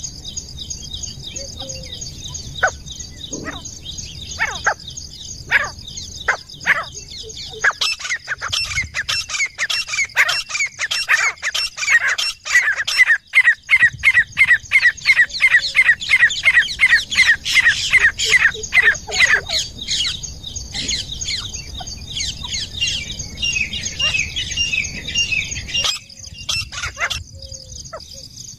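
Grey francolin calling: scattered notes at first, then about eight seconds in a fast run of loud, repeated notes, about three or four a second, lasting some ten seconds, followed by higher, lighter calls. A steady high chirring runs behind.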